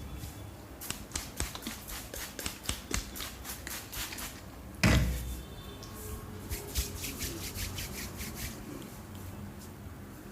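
Hair cracking in a head massage: strands of hair are tugged and snapped, giving runs of rapid sharp clicks, about four or five a second, in two bursts. There is one louder thump about five seconds in.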